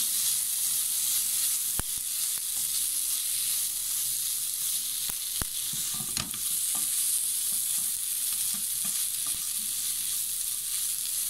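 Shredded chicken frying in oil in a non-stick pan, a steady sizzle, while a wooden spatula stirs pizza sauce through it with scraping sounds. There are a few sharp knocks of the spatula against the pan, about two and five to six seconds in.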